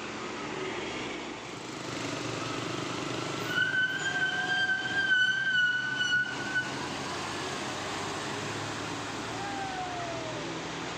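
A tour bus's telolet horn sounds for about three seconds, starting a little over three seconds in. It gives a high held tone, wavering in loudness, over the steady drone of the bus engine and road noise. Near the end there is a brief falling whine.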